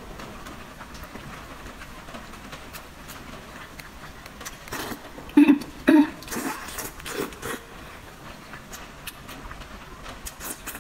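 Close-up eating sounds of wide flat noodles: wet mouth clicks and chewing, with two loud slurps a little past halfway as noodle strips are drawn into the mouth.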